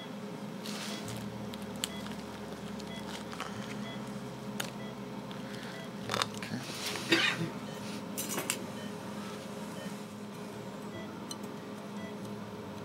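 Light clicks and clinks of metal dental instruments over a steady low hum, with a louder noisy spell of clatter about six to seven seconds in.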